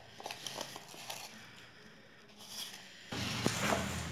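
Hands kneading crumbly rice-flour dough in a steel bowl, with soft crackling and scraping as the moist flour is squeezed and rubbed against the metal. About three seconds in, a low steady hum with hiss comes in suddenly under a louder rustle.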